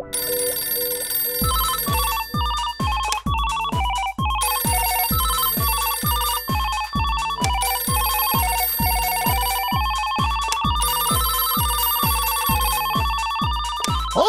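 Old rotary desk telephone bells ringing in repeated bursts, a cartoon sound effect of phones ringing off the hook. Under the ringing runs background music with a stepping melody and a steady thumping beat of about two beats a second.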